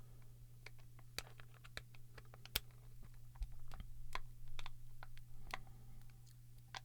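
Irregular small clicks and scrapes of a tool prying at a plastic ink cartridge housing, its clips and casing ticking under the pressure.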